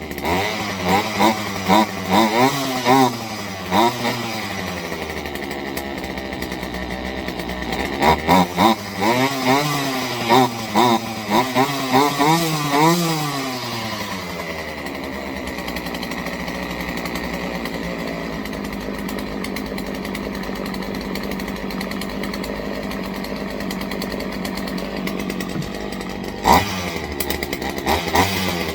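Craftsman 40cc two-stroke chainsaw engine running, revved up and down several times in quick blips, settling to a steady idle for about twelve seconds, then revved again near the end. It is being run while its carburetor air screw is tuned to stop it bogging down.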